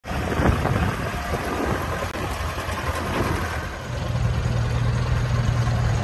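Zetor 7341 tractor's four-cylinder diesel engine running as the tractor drives along towing a feed mixer wagon. About four seconds in, a steady low engine note strengthens and the sound grows a little louder.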